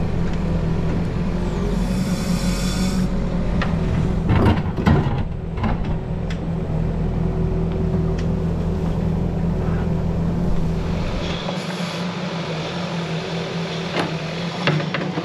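Caterpillar 308E mini excavator working, its diesel engine running steadily. A brief hiss comes about two seconds in, and several knocks and scrapes about four to six seconds in. A couple of sharp clicks come near the end.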